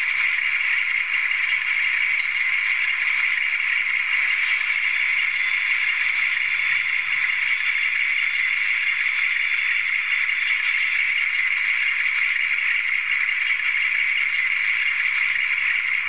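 Recorded sound of a Class 42 Warship's diesel engines running steadily, played by an ESU LokSound decoder through the small onboard speaker of a Bachmann model locomotive. It sounds thin and tinny, with almost no bass.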